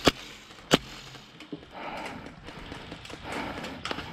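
Two sharp airsoft gun shots in the first second, about two-thirds of a second apart, followed by short bursts of rustling roughly every second and a half.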